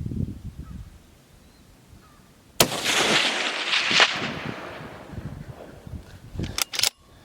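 A single rifle shot from a Ruger Precision Rifle, its report rolling away in a long fading echo for about two seconds. Low handling rumble comes before it, and a few sharp clicks come near the end.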